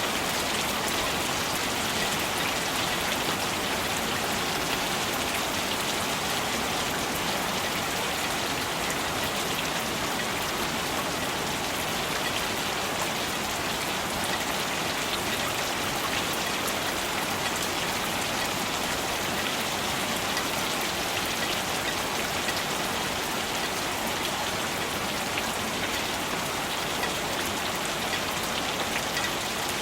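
Steady rainfall with many fine drops pattering on surfaces, an even, unbroken hiss.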